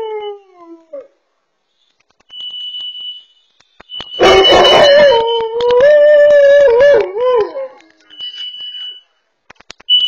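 A dog howling at a carbon monoxide alarm: the alarm gives repeated high, steady beeps about a second long, and about four seconds in the dog breaks into a loud, long, wavering howl, with the tail of an earlier howl fading out at the start.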